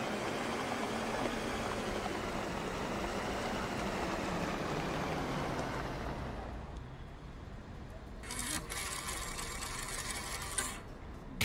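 Cartoon vehicle sound effect: a steady engine hum with road noise as the vehicles drive along, dying down about six seconds in. Near the end comes a separate rushing noise lasting about two and a half seconds.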